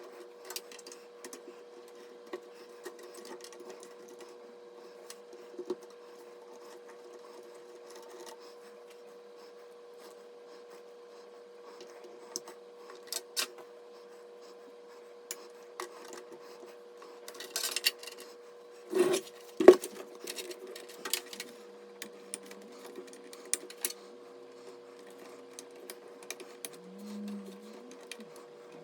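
Scattered clicks and knocks of computer parts and tools being handled during a PC build, with two louder knocks about two-thirds of the way through, over a steady hum.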